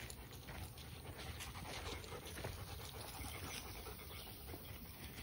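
A German shepherd dog panting, faintly.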